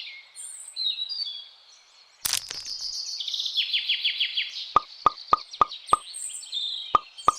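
Birds chirping in quick high trills, with one sharp knock about two seconds in and, in the second half, a run of short plinking plops about three a second.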